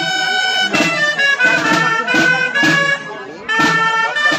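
Dolçaina, the Valencian shawm, playing a folk dance tune in held notes over steady tabal drum beats about twice a second; the music drops away briefly about three seconds in, then resumes.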